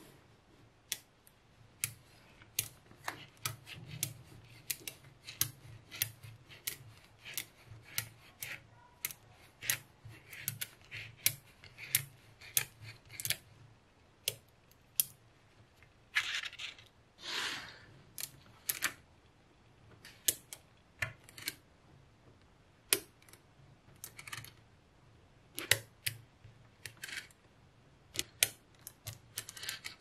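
Small magnetic balls clicking sharply as they snap onto one another, one at a time, in an irregular run of clicks. About halfway through come a couple of longer scraping rattles.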